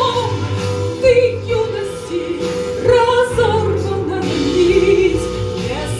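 A woman singing a slow song with instrumental accompaniment and a steady bass line; her voice holds long notes with vibrato.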